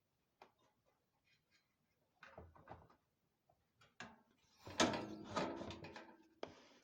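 Gas fan heater parts being handled and fitted together: scattered light clicks, then louder, closer-spaced knocks and clatter in the second half.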